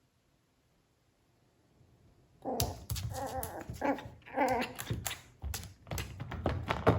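A Chihuahua–toy poodle mix puppy giving a quick run of short barks and whines that starts about two and a half seconds in, mixed with sharp knocks.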